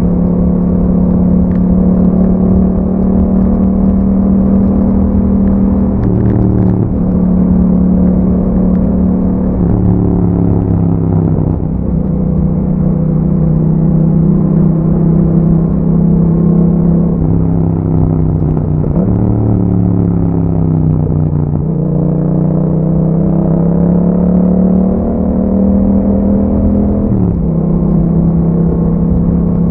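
A 2021 Yamaha MT-07's parallel-twin engine running through an Akrapovic exhaust while being ridden. The engine note holds steady for stretches, and its pitch dips and climbs again several times.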